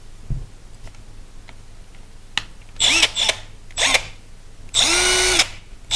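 Milwaukee M12 FUEL right-angle impact wrench's brushless motor run in short trigger pulls, each spinning up with a rising whine: three short bursts, then a longer run of under a second near the end. The motor sounds fairly fast.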